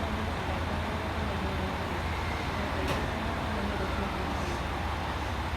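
JR West 223 series electric multiple unit at a station platform: a steady low rumble with faint motor-like tones, and one sharp click about three seconds in.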